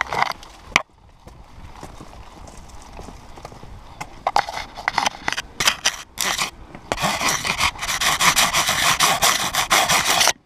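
Ivy hedge leaves and twigs rustling and scraping against a camera mounted on a running dog's back, with the dog's quick footfalls on the pavement. The rubbing is sparse at first, then turns dense and loud from about halfway through.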